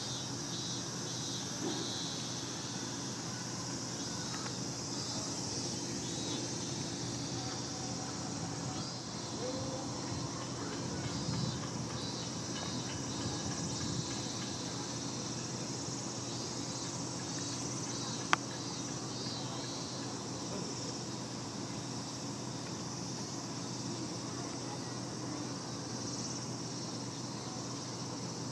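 Summer outdoor ambience of insects buzzing steadily in a high pitch, with one sharp click about eighteen seconds in.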